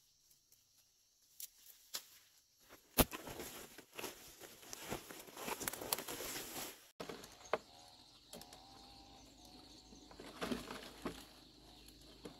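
Rustling and crinkling of freshly picked leafy shoots being pressed into a woven plastic sack, with a sharp snap about three seconds in. After a brief drop-out about halfway, quieter outdoor ambience follows, with faint bird calls and an occasional snap of stems.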